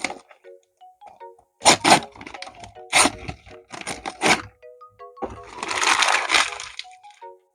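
Plastic toy packaging being opened by hand: a run of sharp crackles and snaps, then a longer rustling tear about five seconds in.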